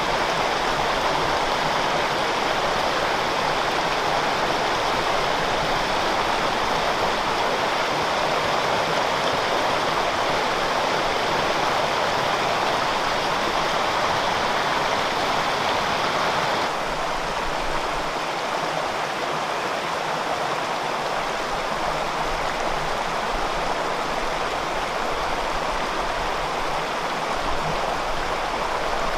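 Steady rush of water from a mountain waterfall and its stream, a constant hiss-like roar with no breaks. About seventeen seconds in it becomes slightly quieter and less bright.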